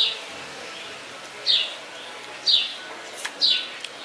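A bird calling repeatedly, each call a short, high chirp falling in pitch, about one a second. One sharp click sounds a little past three seconds in.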